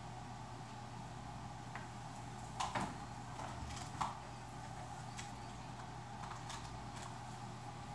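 Light clicks and knocks of cables and plugs being handled while connecting a guitar amp head and speaker cabinet, a small cluster about two and a half to three seconds in and a sharper one at about four seconds, over a steady low hum.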